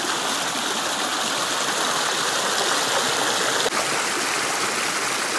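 Shallow rocky stream running over stones close by: a steady rush and babble of flowing water, with a brief dip about two-thirds of the way through.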